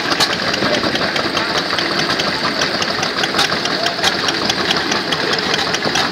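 Vintage Lister stationary engine running steadily and belt-driving a small water pump, with a rapid, regular clicking beat.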